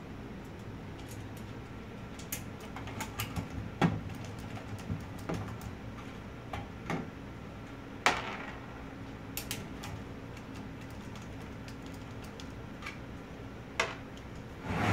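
Screwdriver backing out the small screws that hold a hard drive in a desktop computer's drive cage: scattered light metal clicks and taps, with a few sharper clicks, over a low steady hum.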